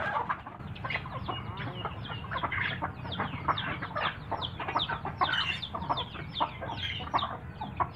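A flock of hens and chicks clucking and peeping as they feed, a dense, continuous stream of short, falling calls.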